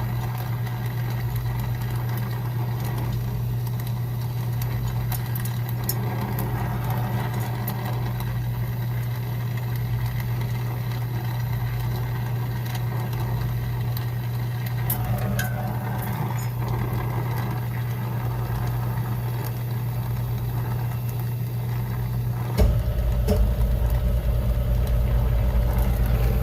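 A steady low machine hum that gets louder near the end, where a deeper rumble and a higher steady tone join it.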